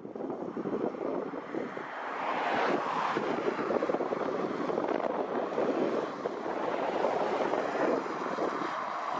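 Boeing 777F freighter's twin GE90 jet engines running as the aircraft rolls out and slows on a wet runway, a steady rushing noise that builds about two to three seconds in, with wind buffeting the microphone.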